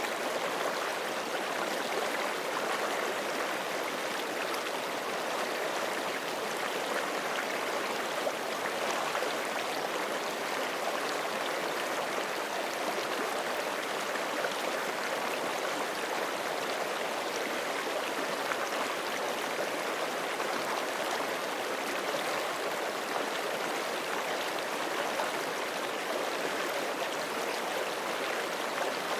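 Forest creek running over rocks: a steady, unbroken rush of flowing water with fine splashing and gurgling.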